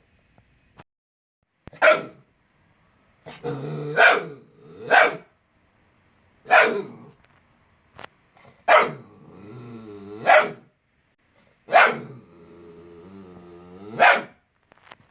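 Vizsla puppy barking, about eight sharp yaps a second or two apart, with low drawn-out growls between several of them.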